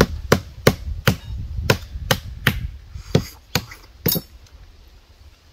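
About a dozen sharp, hard knocks in a steady rhythm of roughly three a second, stopping about four seconds in: a coconut crab claw's shell being struck to smash it open.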